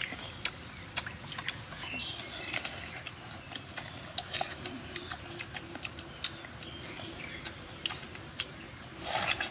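A bird chirping a few short rising notes over many scattered sharp clicks and taps.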